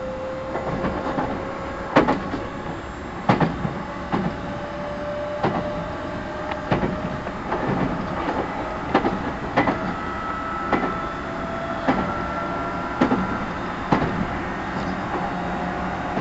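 Running sound inside a JR 211 series 5000 electric train's motor car: wheels click over rail joints about once a second over a steady rumble. A thin whine, most likely from the traction motors and gears, rises slowly in pitch.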